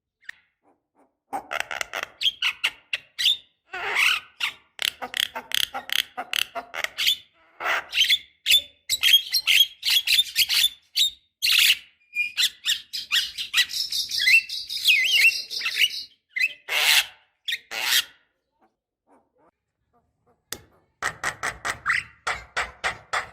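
Javan myna (jalak kebo) singing: long runs of rapid, harsh chattering notes mixed with short whistled phrases, broken by a pause of about two seconds near the end before the chatter resumes.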